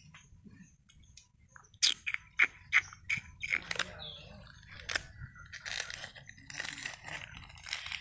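A palm squirrel gnawing and tugging at a plastic-wrapped biscuit packet. It starts with a run of sharp, loud crunches about two seconds in, then softer crackling and crinkling.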